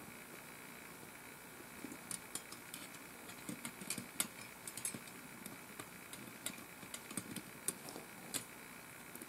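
Faint, scattered metallic clicks and light rattling of a steel wolf trap and its chain being handled to free a caught coyote's foot.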